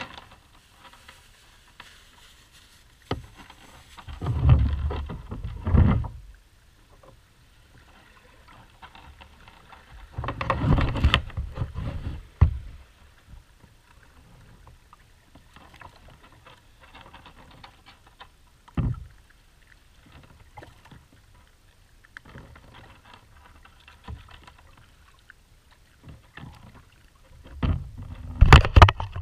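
Scuba diver breathing through a regulator, heard underwater: the exhaled bubbles come out in bursts of about two seconds, every several seconds, with a low hiss between. A couple of single sharp clicks.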